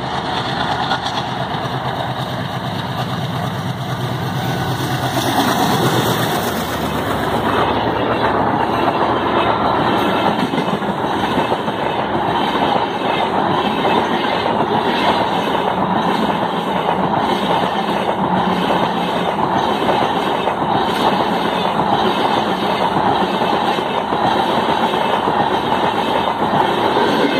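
An Indian Railways express train passing close at speed. The locomotive comes by in the first few seconds with its engine running, then a long rake of LHB coaches rushes past with a steady rumble of wheels on rail and a rhythmic clickety-clack as the wheelsets cross the rail joints.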